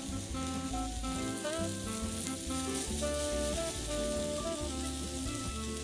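Marinated chicken sizzling steadily on a hot grill grate, with a bossa nova music track playing over it.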